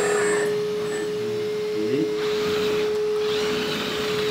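Hydraulic pump motor of a 1/14 LESU ET26L RC excavator running with a steady whine. A higher buzz cuts out about half a second in, and a hiss joins about two seconds in as the arm moves.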